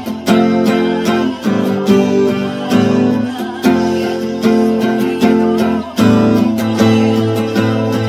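Steel-string acoustic guitar strummed in a steady rhythm, the chords changing every second or so.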